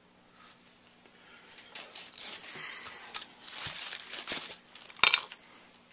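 Plastic bag crinkling and rustling as a jar of polishing compound is handled and its lid worked off, with a sharp click near the end.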